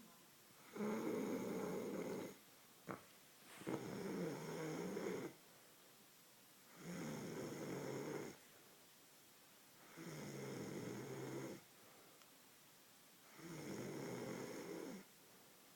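A sleeping man snoring: five snores, each about a second and a half long, coming roughly every three seconds with quiet breaths between. A short click sounds just after the first snore.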